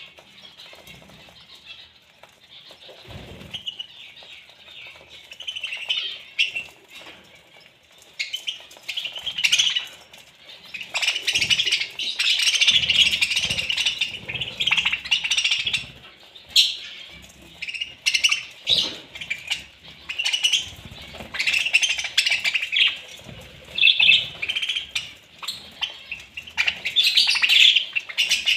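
A flock of budgerigars chattering and chirping while feeding together at a shared bowl. The chatter comes in busy bouts, with occasional wing flutters and soft thumps.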